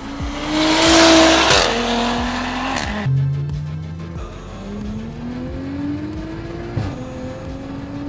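Modified Audi SQ5's turbocharged engine, running a cat-back performance exhaust and catless downpipe, accelerating hard through the gears. The engine note rises and drops at each upshift, about three times, with a loud rushing burst about a second in. Music with a steady beat plays underneath.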